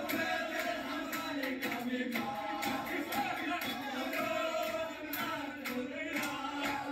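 A group of men chanting together in unison as a victory chant, with rhythmic hand clapping.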